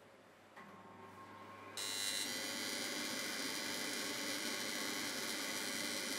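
Blower fan of a gas wok range switched on: a motor hum starts about half a second in, then a loud steady rush of air from about two seconds in.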